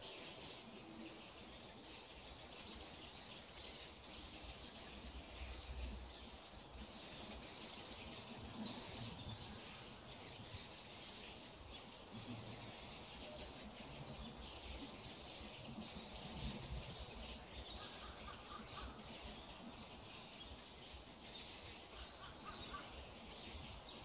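Faint woodland ambience: birds chirping over a steady high hiss, with irregular low rumble.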